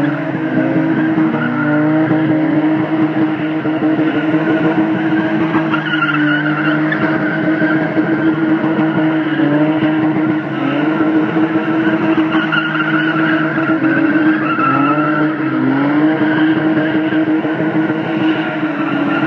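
Two BMW E30 3 Series cars drifting in circles, engines held at high revs that dip and climb back every couple of seconds, with tyres squealing and skidding on the tarmac as they burn off.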